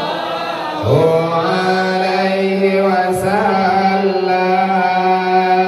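A man's voice chanting selawat, Islamic devotional praise of the Prophet, in a slow, drawn-out melody. It glides up into a long held note about a second in and breaks briefly about three seconds in before holding on.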